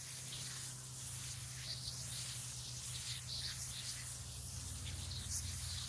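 Water spraying onto mulched garden soil: a steady hiss, with a low steady hum underneath.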